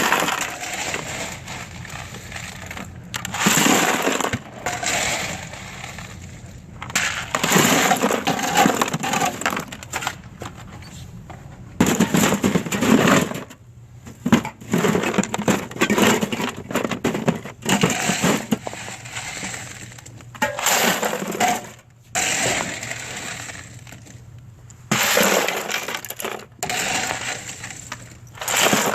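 Ice cubes and soda cans clattering and rattling as they are poured and loaded into a cooler, in repeated bursts a second or two long with short pauses between.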